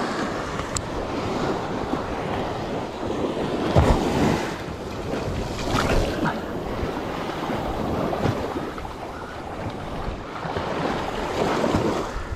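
Surf washing in on a sandy beach, swelling and falling back in surges every few seconds, with wind buffeting the microphone.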